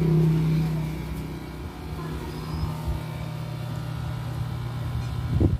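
A steady low mechanical hum, like a motor or engine running, loudest in the first second, then weaker. A short bump near the end.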